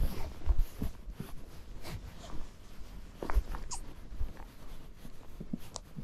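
A horse walking on a packed-snow track, its hooves thudding and crunching in the snow in uneven steps, with short snorting sounds from the horse.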